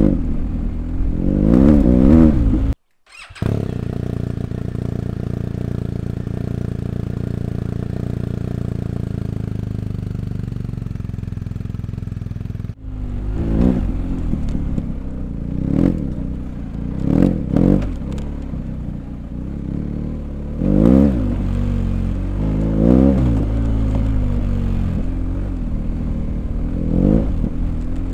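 BMW R1250GS Adventure's boxer twin through an Akrapovic exhaust, ridden off-road. The revs rise and fall with the throttle, the sound drops out for a moment about three seconds in, and then the engine holds an even note for several seconds. From about halfway on it gives a run of sharp throttle bursts, the revs climbing and falling again each time.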